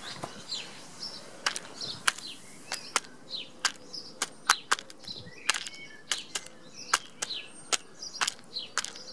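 Hen pecking feed pellets from a plastic bowl: a run of sharp, irregular beak clicks on the pellets and bowl. Small birds chirp in the background.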